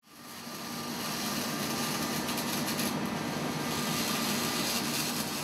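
Logo-intro sound effect: a steady hissing rush of noise with a faint hum beneath, fading in over about the first second.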